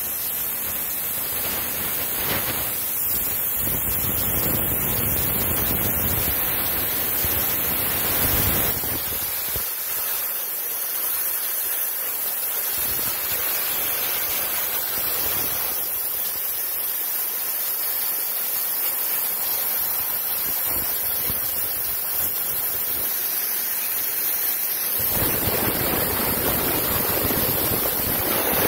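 Steady, loud rushing hiss from a leak at a cracked pipe joint on a vessel in a TEM2 diesel locomotive's machinery, blowing out as a visible white plume. The low part of the noise weakens for much of the middle and comes back near the end.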